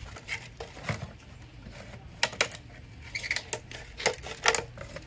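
Irregular light clicks and knocks of small hard objects being handled, about a dozen, with the louder ones in the second half.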